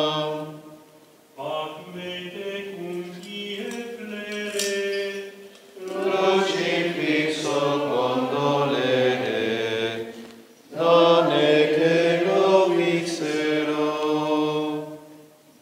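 Franciscan friars singing Latin plainchant in slow sung phrases, with short breaks for breath about a second in and near ten seconds in.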